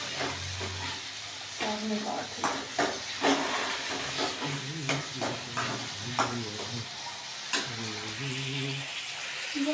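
Onions, tomatoes and green chillies sizzling in oil in a steel kadhai while a steel ladle stirs them, with the ladle clinking against the pan now and then.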